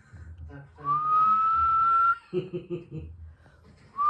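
A person whistling one long, steady note that rises slightly at its start. A short, low voice-like sound follows, and another whistle begins near the end.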